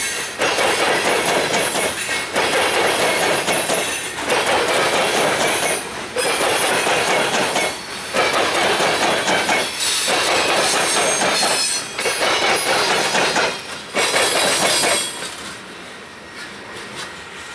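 Freight train of coal hopper cars rolling past close by, wheels clattering on the rails. There is a brief lull about every two seconds as each car goes by. The sound falls away sharply near the end as the last car passes.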